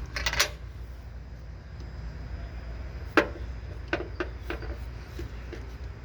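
Keys and small metal objects clicking and clinking as they are handled and set down. There is a short cluster at the start, one sharp click about three seconds in, then several lighter taps, all over a steady low hum.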